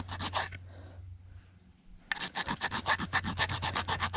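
Rapid, even scraping strokes, about six a second, on the small coil of an electric toothbrush motor: the coil is being scratched to check whether it is copper. The scraping pauses for about a second and a half, then starts again about two seconds in.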